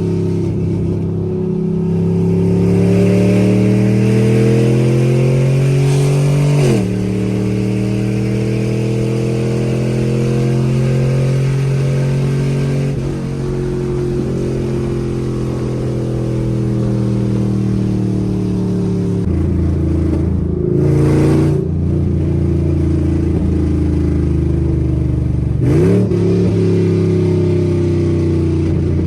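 Chevrolet Camaro SS 6.2-litre V8 with long-tube headers and an unfinished exhaust, driving loud: the engine note climbs, drops sharply at a gear change about seven seconds in, then eases down slowly, with further quick shifts and a short rev blip later on.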